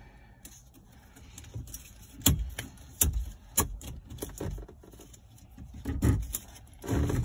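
Ratchet tie-down strap being cranked tight, its metal ratchet handle and pawl clacking several times at uneven intervals.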